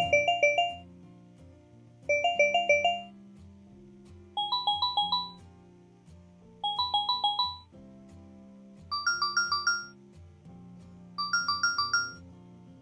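Phonak Marvel hearing aid ringtone: six short trills of rapidly alternating two-note beeps, about two seconds apart, stepping up in pitch every second trill, over background music.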